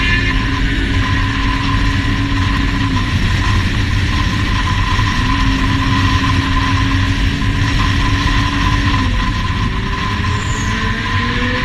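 Motorcycle engine heard from the rider's seat while riding, holding steady revs, easing off about three seconds in and again about nine seconds in, and climbing again near the end, with heavy wind rumble on the microphone.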